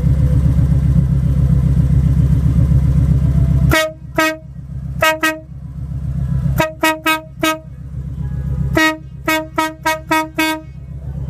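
Motorcycle engine running, then a pair of motorcycle-mounted Gampro trumpet air horns sounding together in about fourteen short blasts, given in quick bursts of two, two, four and six.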